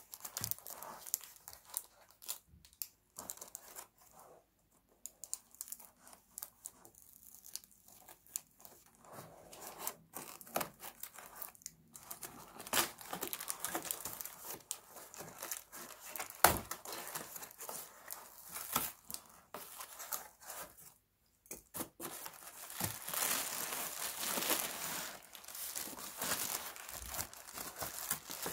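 Scissors snipping through tape-wrapped cardboard packaging, and the cardboard being torn and crinkled open by hand, in irregular rustling and ripping sounds. One sharp snap a little past halfway is the loudest moment, and the tearing grows denser near the end.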